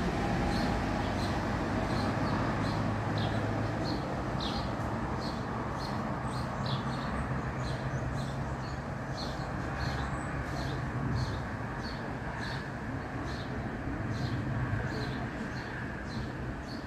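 Outdoor background: a steady low rumble with a short, high chirp repeated evenly about twice a second.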